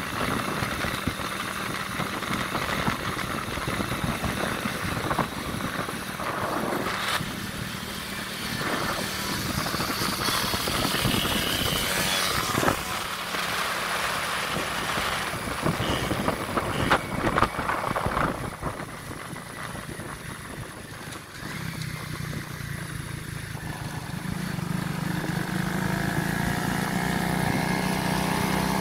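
Vehicle engine running while driving along a road, with steady road and wind noise and a few knocks. Near the end the engine gets louder and its note climbs as the vehicle speeds up.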